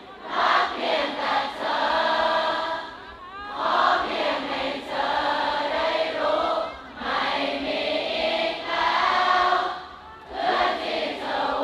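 Large concert crowd singing a song together in unison, in sung phrases a few seconds long with short breaks between them.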